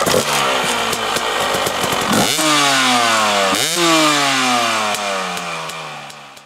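Motorcycle engine revving: its pitch slides down, snaps sharply up twice and falls away slowly after each, then fades out near the end.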